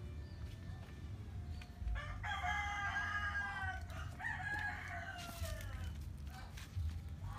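A rooster crowing once, starting about two seconds in: one long crow of about three and a half seconds that slides down in pitch at the end.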